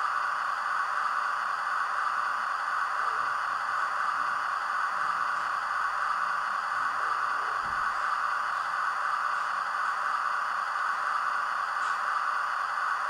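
Model railway turntable running steadily as it slowly turns the locomotive, a constant even hiss-like noise.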